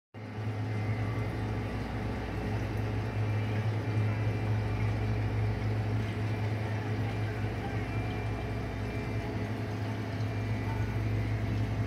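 A steady low hum over an even background hiss, unchanging throughout.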